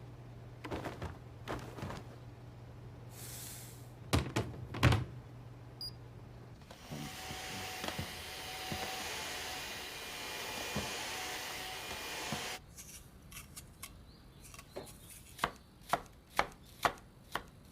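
Kitchen sounds: a few knocks, then a steady hiss lasting about six seconds, then a knife chopping on a cutting board, evenly spaced at about two cuts a second near the end.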